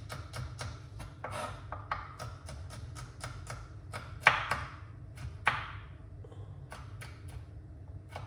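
Kitchen knife finely dicing sweet peppers on a cutting board: a quick run of chopping taps, about four a second, then two louder strikes a little past the middle and a few sparser taps near the end.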